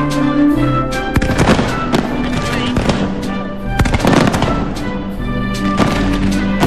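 Fireworks display (a Valencian fireworks castle) going off in a rapid series of sharp bangs and crackles, with the heaviest cluster about four seconds in. Music with long held notes plays under it throughout.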